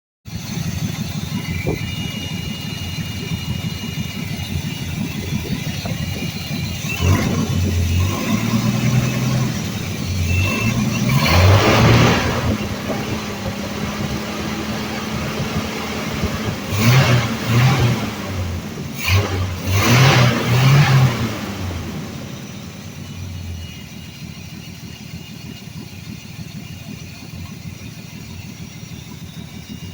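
1982 Ford F150's 300 cubic-inch (4.9 L) inline-six engine running and being revved several times, then settling to a quieter idle near the end. The owner says there is a bad vacuum leak somewhere around its Quadrajet carburetor.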